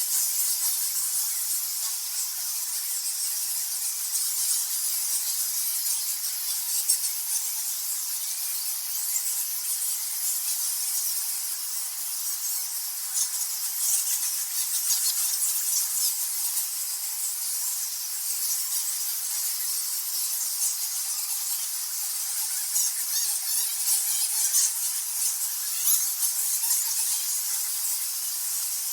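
A colony of bats squeaking and chittering: a dense, unbroken mass of high-pitched squeaks that barely changes in level.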